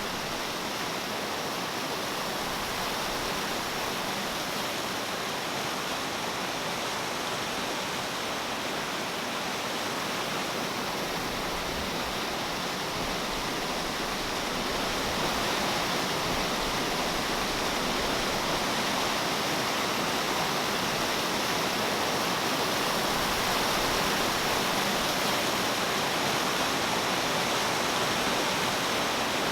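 A steady, even rushing hiss with no distinct events, growing slightly louder about halfway through.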